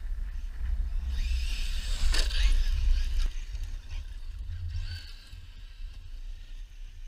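Traxxas E-Revo electric RC truck driving hard on gravel: a burst of motor whine and tyre crunch about a second in that drops in pitch as it goes past, then a shorter whine near five seconds. Steady wind rumble on the microphone underneath.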